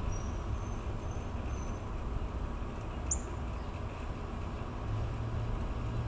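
Low, steady rumble of a vehicle engine on the street. A few faint high peeps come in the first two seconds, and one short sharp chirp about three seconds in.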